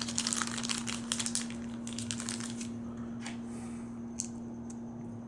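Crinkling of a Lego minifigure blind bag and small plastic parts clicking as they are handled and fitted together, busy for the first couple of seconds, then a few scattered clicks.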